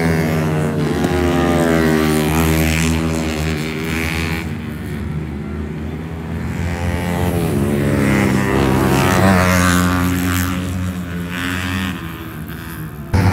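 Supermoto motorcycle engines running and revving, the engine note rising and falling as the bikes ride the course; the sound drops about twelve seconds in, then jumps back suddenly near the end.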